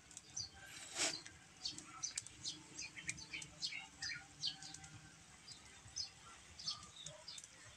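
Small birds chirping, many short high chirps one after another, with a single sharp crack about a second in.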